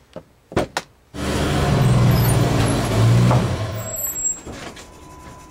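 Two short clicks, then a motor vehicle's engine noise that comes in suddenly about a second in, stays loud for about three seconds and fades away.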